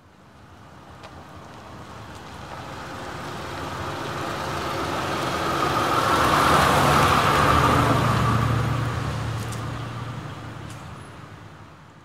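A motor vehicle passing by slowly: its engine hum and tyre-on-road noise swell gradually to a peak about seven seconds in, then fade away.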